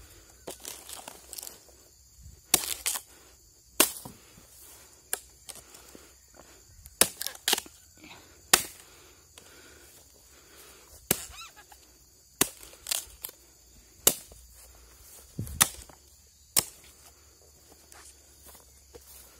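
A series of sharp, short clicks and knocks at irregular intervals, about one every second or so, some in quick pairs.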